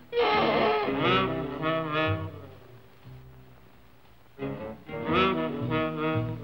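Cartoon background music with brass-like wind phrases. It drops almost to quiet for a couple of seconds midway, then resumes.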